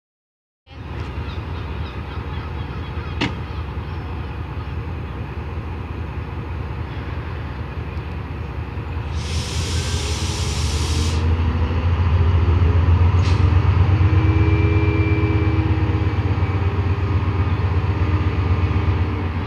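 Class 68 diesel-electric locomotive running at a station, its deep engine rumble growing louder about halfway through as it powers up. A two-second hiss of air comes about nine seconds in, just before the engine note rises.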